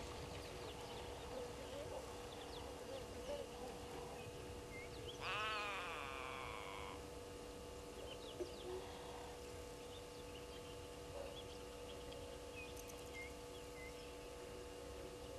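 Outdoor bush ambience with a steady hum and scattered short bird chirps. About five seconds in, one loud wavering animal call lasts under two seconds and is the loudest sound.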